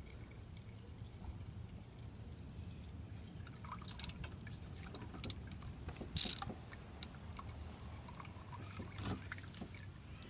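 Motor oil dribbling faintly from the oil filter mount of a Honda VFR800 into a drain pan, with a few small clicks and one brief louder burst of noise about six seconds in.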